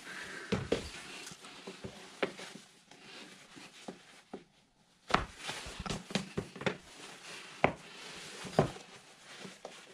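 Shoes being put on a tiled floor: sneakers and slippers knocking and scuffing on the tiles, with rustling, as irregular knocks and a short quiet spell about four seconds in.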